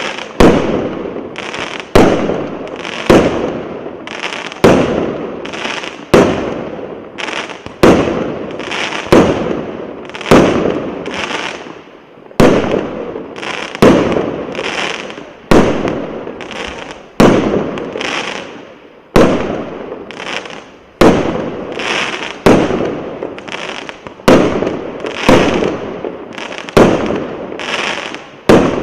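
Multi-shot consumer fireworks battery (cake) firing shot after shot: a sharp bang roughly every one to two seconds, each followed by a fading tail.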